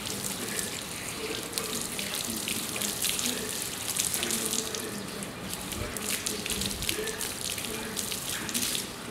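Water from a garden hose splashing onto a motorcycle and running off it, with many small splashes as the bodywork is scrubbed with a sponge.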